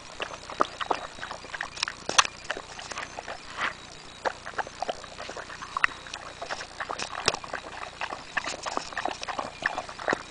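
A dog eating watermelon noisily: irregular wet smacks and crunches of chewing, several a second.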